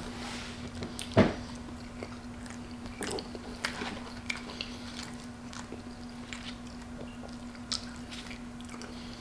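Close-miked mukbang eating sounds: chewing and mouth smacks while eating Wendy's cheese-topped Baconator fries, with scattered small clicks and one louder smack about a second in. A steady low hum runs underneath.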